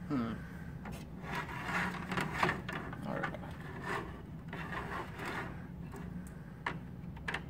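Hard plastic toy parts rubbing, scraping and clicking as they are handled and plugged together, with a few sharp clicks among the rustle.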